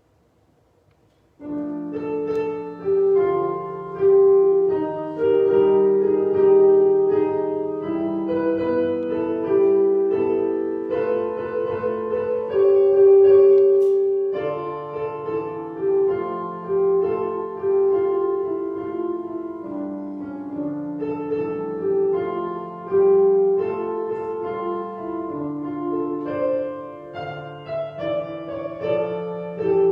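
Piano playing a slow, stately piece, starting about a second and a half in after near silence, with a short break in the notes about halfway through.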